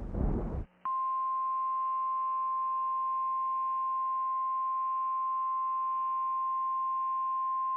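NOAA Weather Radio 1050 Hz warning alarm tone: one steady, unbroken high tone that starts just under a second in, just after a loud rumbling noise cuts off abruptly. The tone signals that a weather warning message follows.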